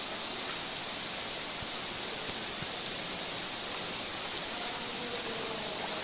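A waterfall rushing steadily, an even hiss of falling water with no breaks, heard within a narrow rock-walled canyon.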